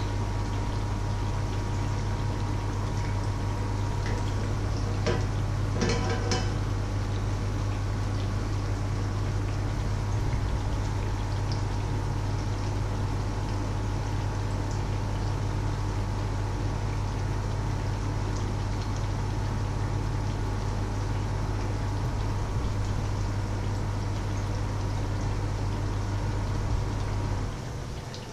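Batter fritters frying in hot oil in a pan under a splatter screen, a steady sizzle, over a steady low hum that cuts out about a second before the end. A few short clicks about five to six seconds in.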